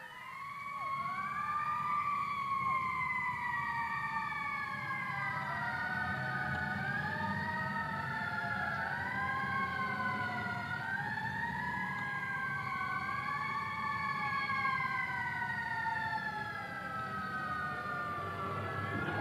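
Several siren-like wailing tones that overlap and glide slowly up and down, one over another, above a steady low rumble.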